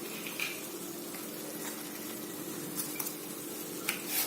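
Maggi noodles simmering in a pan over a low flame, a steady low hiss, with a few light clicks near the start and towards the end.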